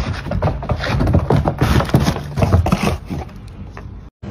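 Golden retriever puppy's paws knocking and scrabbling on wooden deck boards as it runs, many quick knocks for about three seconds, then quieter.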